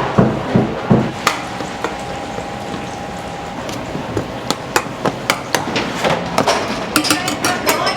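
Rhythmic knocking in a restaurant kitchen, about three knocks a second, stopping about a second in. Scattered sharp clicks and clinks of kitchen utensils and dishes follow.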